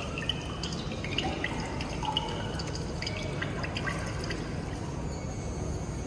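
Scattered, irregular high plinks like water drops, the quiet opening of a dance's backing track over a hall's loudspeakers, over a steady low hum.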